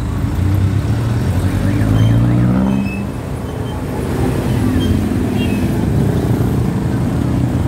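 Roadside traffic. A passenger jeepney's diesel engine pulls away, with its pitch rising about two seconds in, then the sound dips, and engine noise from motorcycles and tricycles runs on steadily.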